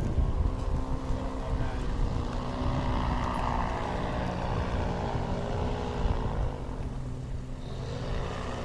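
A paramotor's engine and propeller droning in flight, its pitch wavering up and down and rising again near the end as it comes in.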